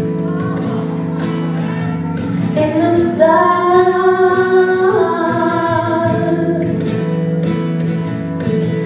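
A woman singing a Christian ballad live into a microphone over steady backing music, drawing out long held notes that glide between pitches.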